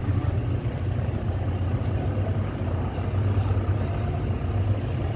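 Steady low rumble of a vehicle's engine and road noise, heard from inside the moving vehicle.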